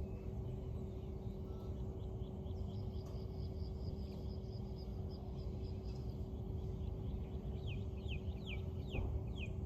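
Bird calls: a fast run of high notes, then about six short descending whistles near the end, over a steady low rumble and a faint steady hum.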